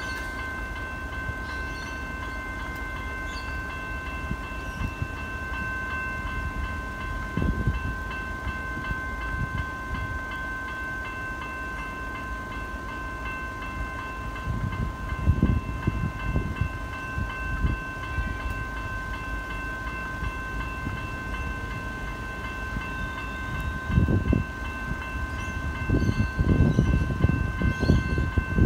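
Railway level-crossing warning bells ringing continuously while the boom gates are down, a steady high ringing tone. Low rumbling surges rise over it about halfway through and grow louder near the end.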